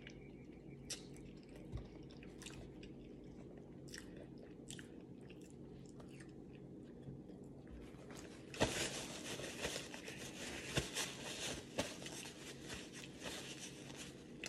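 Close-up eating sounds: chewing with sparse small mouth clicks. From about eight and a half seconds in, a dense, continuous crackling of paper being crinkled. A faint steady hum runs underneath.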